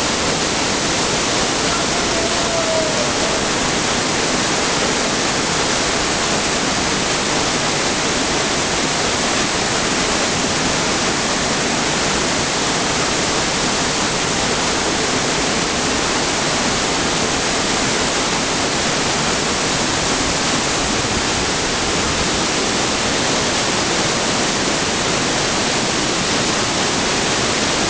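Avalanche Falls pouring down a narrow rock gorge: a loud, steady rush of falling water.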